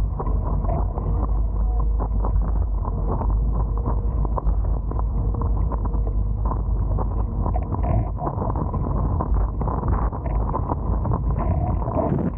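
Steady rumble of wind buffeting the camera microphone, with water rushing and splashing against the hulls of a Hobie Tiger F18 catamaran under sail.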